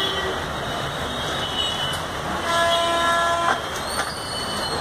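A horn toots once for about a second, a steady pitched blast over a constant noisy din.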